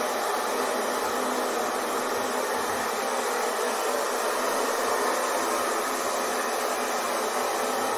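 Hair dryer running steadily, a constant airy rush of blown air and motor noise with no change in level.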